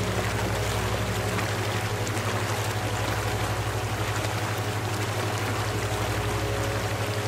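Steady rushing of flowing water, like a stream, over a low, rapidly pulsing hum.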